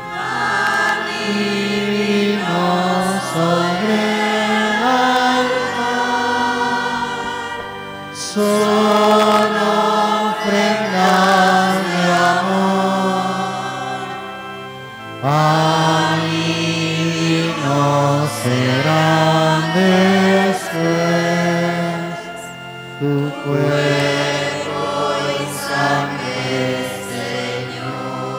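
Church choir singing an offertory hymn over sustained instrumental chords, in long phrases with short breaks between them.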